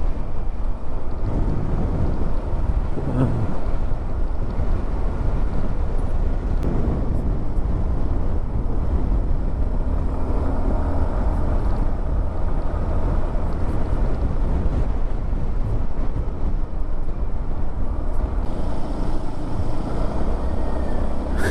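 Road vehicle travelling along a road: steady engine and road noise with a heavy low rumble and no break.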